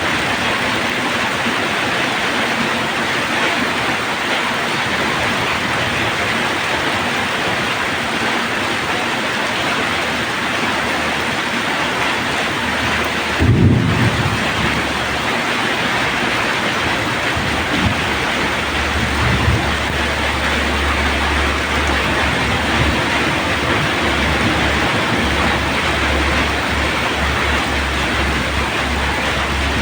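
Steady heavy rain falling, an even hiss. About halfway through comes a brief low boom, and a low rumble continues under the rain through the second half.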